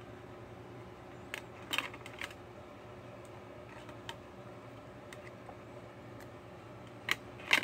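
DVD discs being unclipped from the center hub of a plastic DVD case and handled, giving a handful of scattered plastic clicks and taps over a faint steady room hum.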